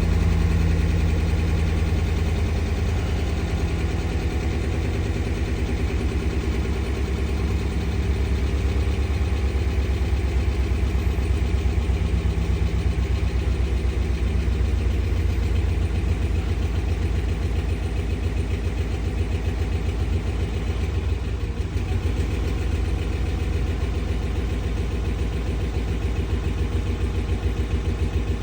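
2013 Ram 1500's 5.7-litre Hemi V8 idling roughly after a cold start, a steady low pulsing exhaust note; the truck is logging a P0300 multi-cylinder misfire code.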